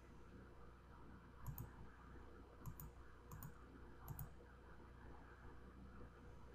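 Four quick computer-mouse button clicks between about one and a half and four and a half seconds in, some heard as a doubled tick, over faint room hum.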